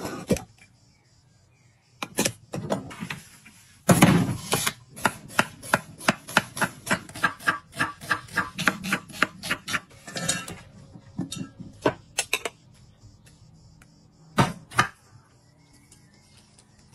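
A blender lid clicks off, then a kitchen knife slices an onion on a wooden cutting board: a fast, even run of knife strikes on the board, about four a second, with a few heavier knocks before and after.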